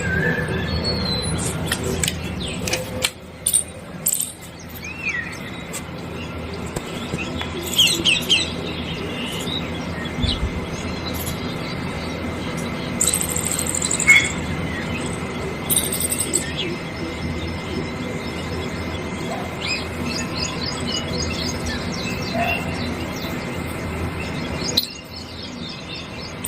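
Birds chirping and calling, with many short chirps and trills over a steady background hiss. The background dips briefly about three seconds in and again near the end.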